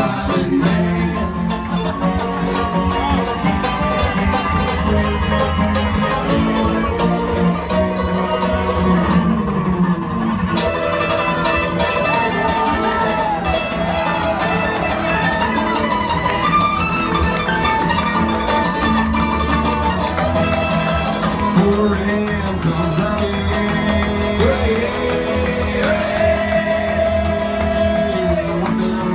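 Bluegrass band playing live: a fiddle line over guitar, with a steady bass beat underneath.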